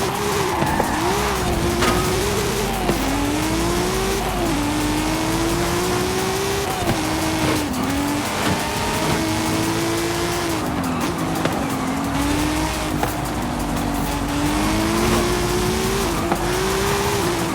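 Car engine running hard, its pitch climbing steadily and then dropping sharply several times, with a steady hiss of road and tyre noise.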